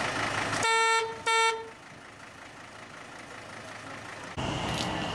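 Two short toots of a truck horn about a second in, each one steady in pitch. They follow a running engine.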